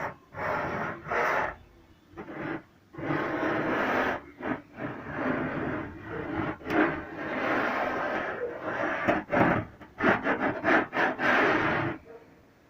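Rough scraping and rasping strokes of a hand tool working a piece, in long uneven runs broken by sharp clicks, stopping shortly before the end.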